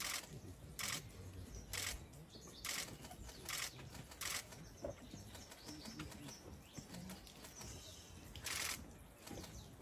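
Camera shutter clicks, about one a second for the first few seconds, then one more near the end.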